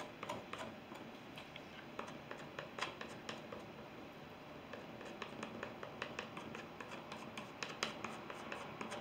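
Palette knife scraping and dabbing oil paint onto a stretched canvas: faint scratching with scattered light taps, which come more often toward the end.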